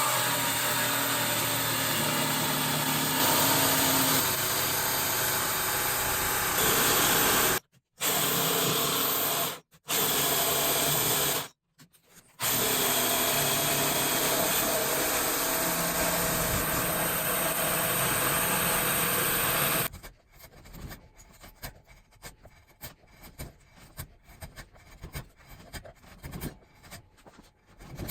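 A power tool running steadily, cut off abruptly three times in its first half. About two-thirds of the way in it stops and gives way to quieter, irregular rubbing strokes, like hand sanding or polishing.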